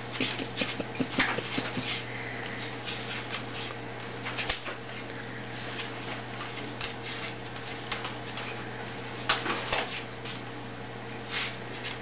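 White cockatoo's beak and feet tapping and scraping irregularly on a wooden tabletop as it pecks at the surface, with clusters of sharp clicks about a second in, midway, and near the end, over a steady low hum.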